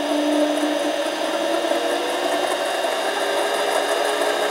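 Harbor Freight 93212 7x10 mini lathe running with its chuck spinning after the speed was turned up: a steady motor whine with several tones over a hiss.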